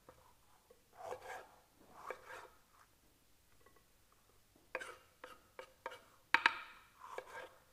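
A knife cutting green bell peppers on a wooden chopping board: a few crisp scraping cuts, then a run of sharp knife taps on the board, the loudest about six seconds in.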